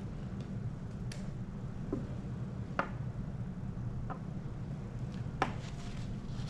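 Small lab items handled on a benchtop: about five light clicks and taps of a metal micro spatula and plastic sample containers, the sharpest near the end, over a steady low room hum.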